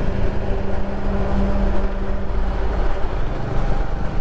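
Bajaj Dominar 400's single-cylinder engine running at cruising speed in traffic, a steady hum whose note shifts a little past halfway, with wind rumbling on the microphone while riding past a truck.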